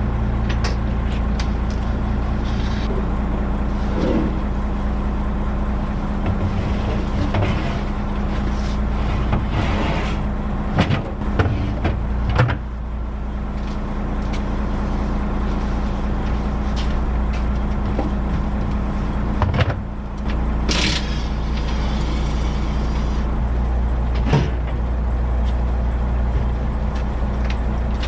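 Truck engine running steadily, with a few sharp knocks and clanks: a cluster about eleven to twelve seconds in, another around twenty seconds, and one near twenty-four seconds.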